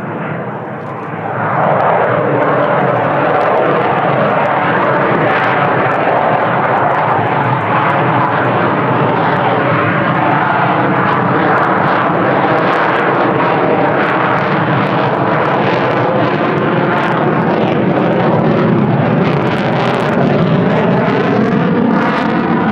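Jet engine noise from an F-35A Lightning II's single F135 turbofan as the fighter flies its display, loud and steady, swelling about a second and a half in, with tones that slide in pitch as the jet moves.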